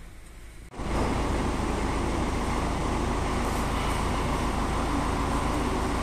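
Machinery running steadily with a low engine hum and a rushing noise, cutting in abruptly about three-quarters of a second in.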